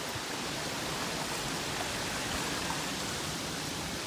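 Steady rush of creek water flowing over a small waterfall.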